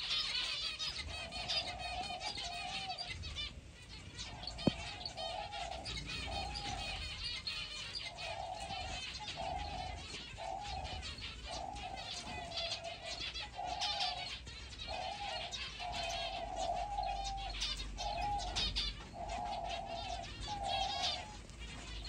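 Doves cooing in a long run of short, low coos, over constant high chirping from a flock of small finches, zebra finches among them. A single sharp click about five seconds in.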